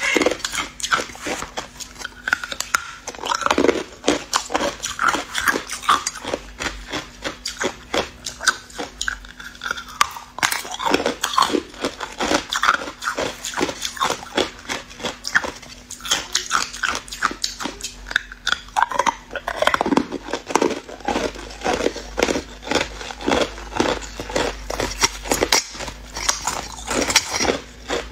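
Hard ice being bitten and chewed: a dense run of crunching cracks as chunks of white ice break between the teeth.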